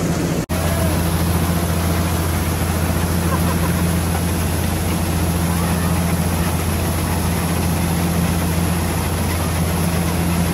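Combine harvester's diesel engine and threshing machinery running steadily with a deep, even drone. The sound drops out for an instant about half a second in.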